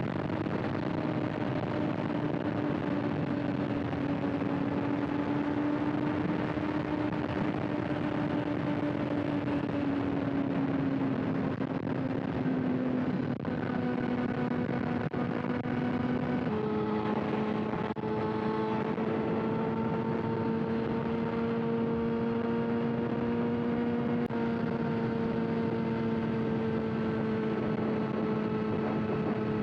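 Kawasaki ZX-6R inline-four engine running steadily through an aftermarket SC-Project exhaust. The note drifts slowly lower, steps abruptly in pitch a little over halfway through, then holds roughly level.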